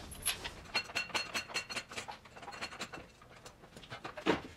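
A string of light clicks and metallic clinks from tools and metal parts being handled, with a brief run of rapid ringing metal ticks about a second in.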